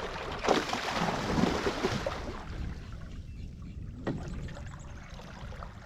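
Water splashing and sloshing around a fishing kayak, loudest in the first couple of seconds, with a single sharp knock about four seconds in, over a low rumble.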